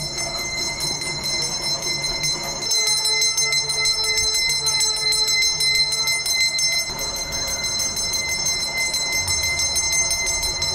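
Brass temple bell rung rapidly and without a break: a fast, even run of strikes over a steady ring.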